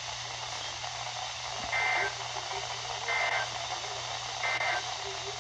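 Radio receiver playing three short EAS/SAME digital data bursts, each a brief two-tone warble, about 1.3 seconds apart over a steady static hiss. Short bursts like these are the end-of-message code that closes an emergency alert.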